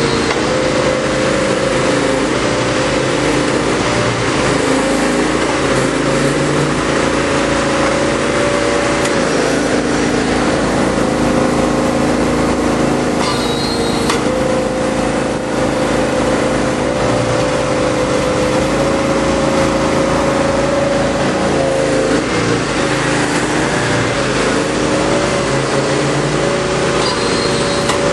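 Engine of a compressed earth block press running steadily throughout, its pitch dipping and recovering now and then.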